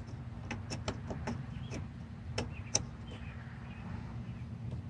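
A scatter of small plastic clicks and taps as a wiring connector is worked onto a flex-fuel ethanol sensor, most of them in the first three seconds, over a low steady hum.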